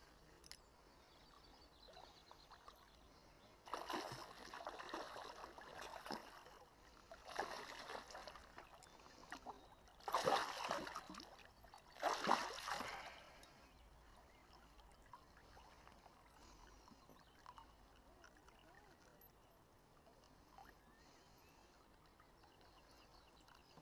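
Water splashing as a small hooked pike thrashes at the surface and is grabbed by hand: four bursts of splashing, the last two the loudest. After that only a faint, steady background.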